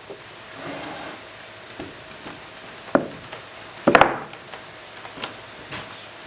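Wooden parts being handled and knocked together: a sharp knock about three seconds in, a louder clattering knock about a second later, and lighter taps around them.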